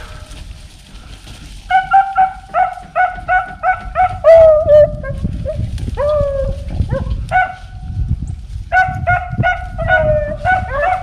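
Beagle hound barking in quick runs of short, pitched barks, a few a second with brief gaps between runs. This is the baying of a rabbit beagle working a cottontail's scent.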